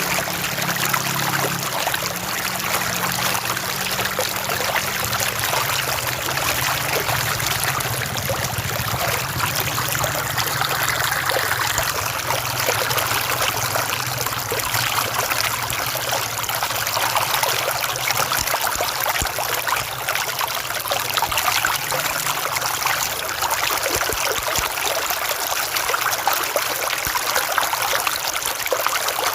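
River water flowing and trickling steadily, an even rush with no pauses.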